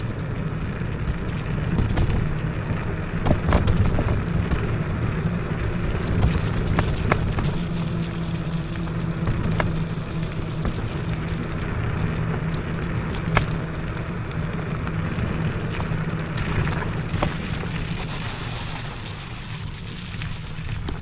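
IO HAWK Legacy electric scooter riding over a rough off-road track: a steady low rumble of tyres and wind on the microphone, with a low steady hum and scattered sharp knocks from bumps.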